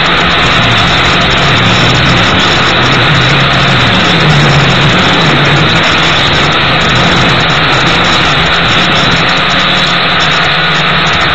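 Gptoys Aviax F2C quadcopter's motors and propellers heard through its onboard camera's microphone: a loud, steady buzz whose pitch drifts up and down as the throttle changes, under a rush of wind noise.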